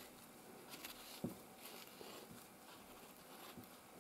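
Near silence, with faint scraping of a knife being drawn through an avocado's skin around its stone, and one small tap about a second in.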